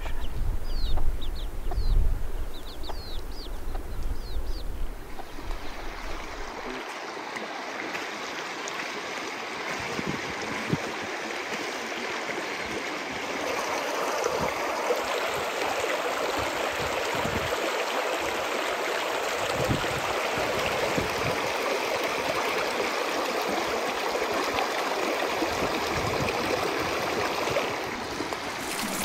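A shallow mountain stream running over stones, a steady babbling from about six seconds in. Before that there is a low rumble and a run of quick, high chick peeps.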